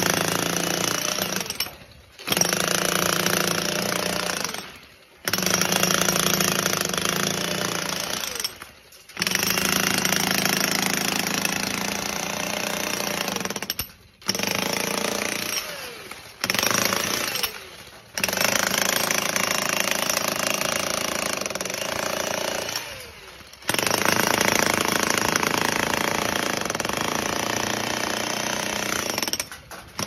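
Electric demolition hammer chiselling into a concrete slab. It runs loud in stretches of one to several seconds and stops briefly about seven times between them.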